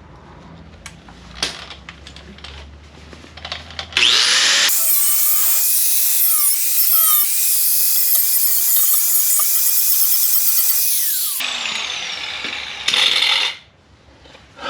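A high-speed rotary power tool spins up about four seconds in and cuts sheet steel, a loud high-pitched cutting noise lasting about seven seconds. It then winds down with a falling pitch, and a short second burst of cutting follows.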